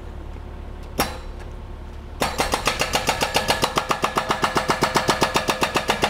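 A single sharp click about a second in. Just after two seconds a small engine close by starts and runs with a rapid, even putter of about six or seven beats a second.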